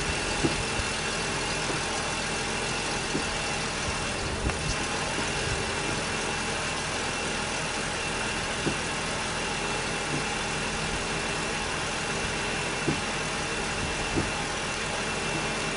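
2000 Ford Taurus V6 engine idling steadily while the brakes are bled, with a few faint light clicks scattered through.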